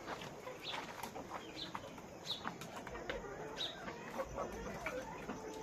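A flock of farm chickens clucking, with short high calls about once a second.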